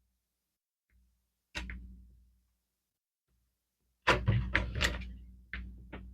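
Plastic Lego bricks clicking and knocking as they are handled and pressed into place: one click, then a quick cluster of clicks about four seconds in, and a couple more near the end.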